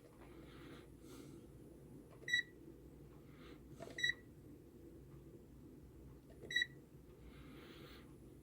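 Digital multimeter beeping three times, each a short high beep, a couple of seconds apart, with faint handling sounds in between.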